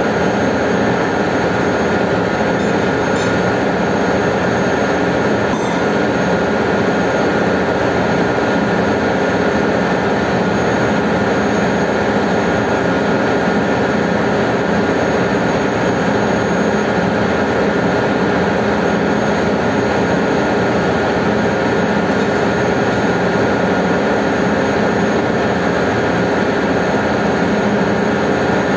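Steady, loud drone of a ship's engine room machinery running, with several held tones in it. A couple of faint clicks sound a few seconds in.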